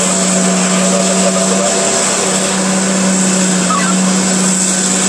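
Diesel engines of a Hitachi EX2500 mining excavator and a Komatsu HD785 haul truck running with a steady, even drone and a constant low hum.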